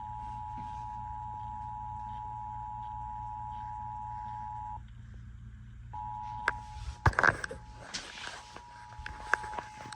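Emergency Alert System attention signal: the 853 Hz and 960 Hz two-tone alert sounding steadily over a low hum. It cuts out for about a second just before the middle, then resumes. A few sharp knocks and a brief clatter, the loudest sounds, come about seven seconds in.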